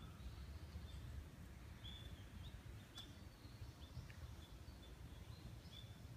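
Faint outdoor ambience: a small bird chirping in short, high notes several times, over a low steady rumble.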